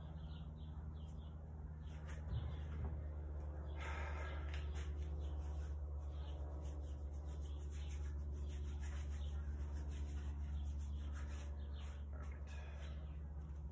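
Leather wraps being handled, folded and wrapped around a steel nail on a wooden tabletop: scratchy rubbing and rustling that starts about four seconds in. A steady low hum runs underneath throughout.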